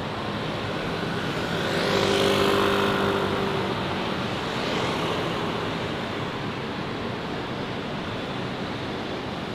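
A car passing on a wet street, its tyre hiss and engine swelling and fading about two seconds in, then a quieter vehicle passing near five seconds, over steady city traffic noise.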